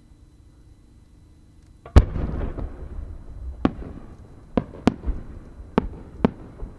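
A 10-go (about 30 cm) aerial firework shell fired from its mortar: one deep boom about two seconds in with a long rumbling echo, then five or six sharp separate pops as the small rising-effect bursts attached to the shell go off during its climb.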